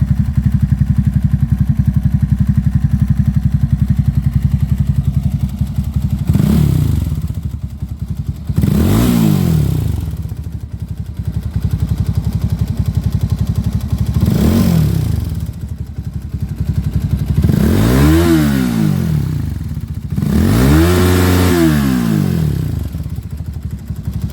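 Loncin LX300GS's water-cooled single-cylinder engine idling with a steady knock and five quick throttle blips, the knock speeding up and slowing with the revs. The knock comes from the camshaft's decompressor mechanism, whose broken spring lets it strike the hydraulic lifter.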